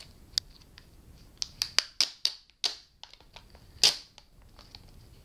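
Num Noms mystery-pack boxes being handled and opened by hand: a run of about eight sharp clicks and snaps of the packaging, the loudest near four seconds in.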